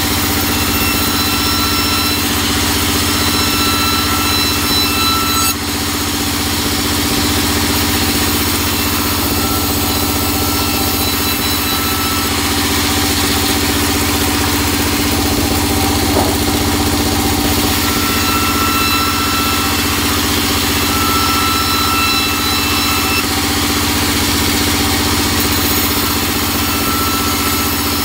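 Sawmill band saw running with a steady low hum while its blade rips a teak plank lengthwise. A high-pitched whine comes and goes in stretches of a few seconds as the cut proceeds. It is hard going in the teak, and the saw feels blunt to the sawyer.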